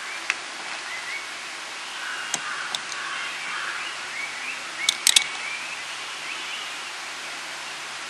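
Rainforest ambience: a steady hiss with scattered short, rising bird chirps, and a few sharp clicks, the loudest cluster about five seconds in.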